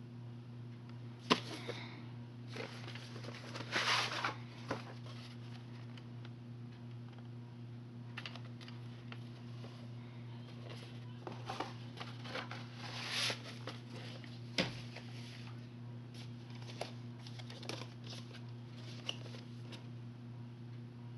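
VHS tapes being handled, one put down and another picked up from the row: scattered sharp clicks, knocks and rustles, the loudest click about a second in. A steady low hum runs underneath.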